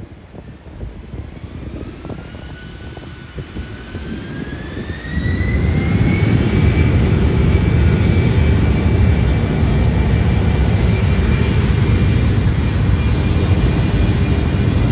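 Regional jet airliner's turbofan engines spooling up: a whine climbs steadily in pitch, and about five seconds in a loud, steady low rumble sets in and holds, as the engines reach high thrust for takeoff.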